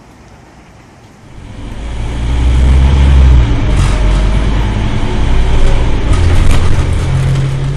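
Scania double-decker bus engine running, a low drone that swells in loudly about a second in and holds, its pitch shifting a few times.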